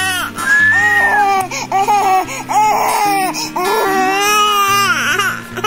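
An infant crying in a string of high, arching wails, over background music with steady low held notes.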